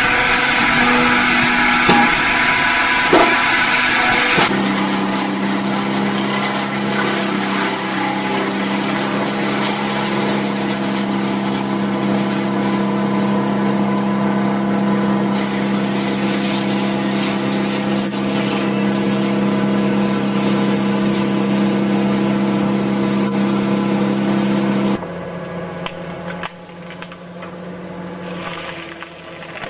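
Engine of a tree-cutting machine running steadily under load. The sound changes suddenly about four seconds in and again near the end, where it drops quieter.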